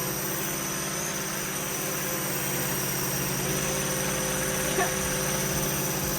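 Air Hogs Gravitor toy drone's small electric motor and propeller whirring steadily as it hovers, a high, even buzz with no change in pitch.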